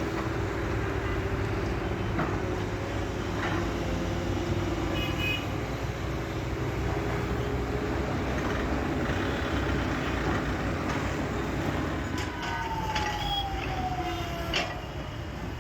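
SANY SY210C-9 excavator's diesel engine running steadily under load, with scattered knocks and clatter from the bucket and material. A falling whine comes near the end.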